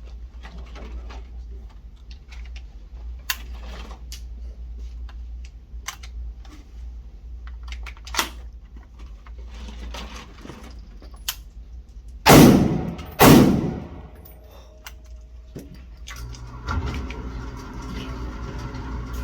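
Two loud gunshots about a second apart, each with a ringing tail, amid scattered small clicks and knocks of gun handling.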